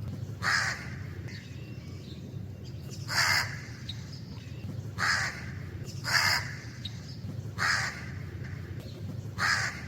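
A crow cawing: six single harsh caws at irregular intervals of one to two and a half seconds, over a steady low background rumble.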